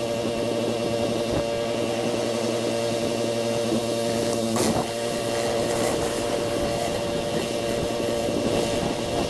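Pressure washer running steadily: a constant engine drone with a hiss over it.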